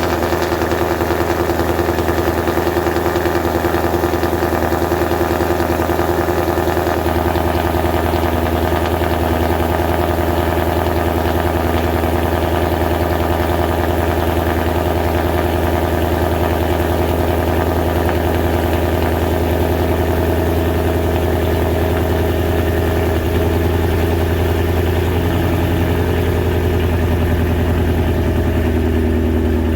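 Ford Mustang's Gen 3 Coyote 5.0 V8 idling steadily through Texas Speed headers, an FFE X-pipe and factory OEM mufflers.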